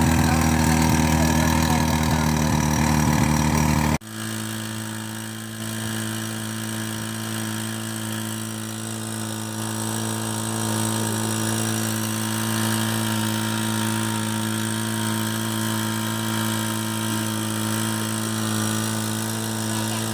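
Tohatsu V50 portable fire pump engine running under test. About four seconds in, the sound cuts abruptly to a quieter, steady hum that then holds without change.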